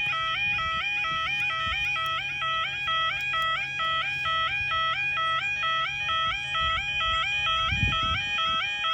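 Level crossing warning alarm sounding: a loud electronic two-tone warble that flips rapidly and steadily between a low and a high note, signalling that the barriers are down for an approaching train. A steady low hum runs underneath, with a brief low rumble near the end.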